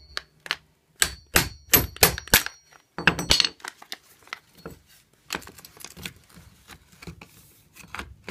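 A steel hammer strikes the axle of a Bugaboo Cameleon front swivel wheel to drive it out through the ball bearings so the wheel can come off. A quick run of about seven sharp, ringing metal blows comes in the first couple of seconds and a few more just after, then softer knocks and rattles follow.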